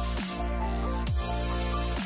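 Electronic background music with a steady deep bass under held synth tones, and a falling pitch sweep about once a second.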